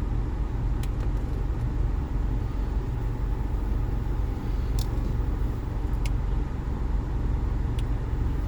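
Car idling, heard from inside the cabin: a steady low rumble with a few faint clicks.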